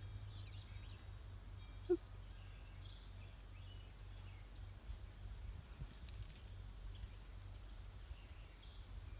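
Quiet outdoor background: a steady high hiss with a faint low hum, and a few faint short chirps scattered through.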